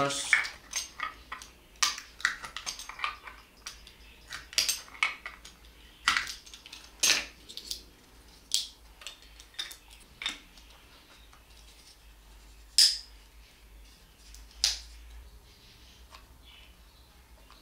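Hard plastic lid being cut open to make a hole for a bulb socket: irregular clicks, snaps and scrapes, busiest in the first ten seconds, with two sharp snaps later on and only faint handling near the end.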